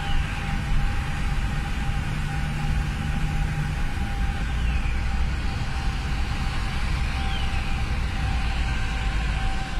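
Steady road and engine noise of a car driving at speed, heard from inside the cabin: a constant low rumble of tyres and engine with a faint steady whine above it.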